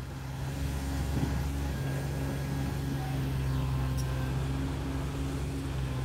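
Three-cylinder Komatsu 3D84 diesel engine of a Komatsu PC30-5 mini excavator running with a steady, even hum, picking up slightly over the first second.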